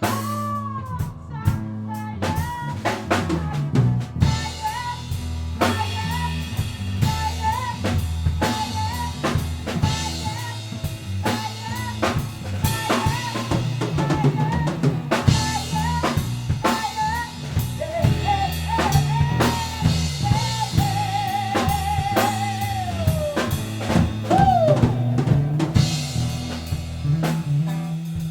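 Rock band rehearsal: drum kit with bass drum, snare and rimshots keeping a steady beat under a busy bass guitar line, while a lead guitar plays a melody with pitch bends and a held, wavering vibrato note a little past the middle.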